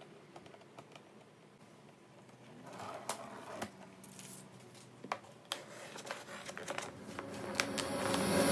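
Cardboard panels of a cat tent being handled and pressed into place: scattered light taps, clicks and rustles, a few of them sharper, as the double-sided tape is peeled and stuck.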